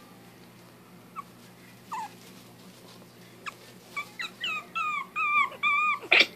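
Month-old Maltese puppy whimpering: a few faint short squeaks, then from about four seconds in a quick run of high whines and yips, each bending up and down in pitch, the last one loudest.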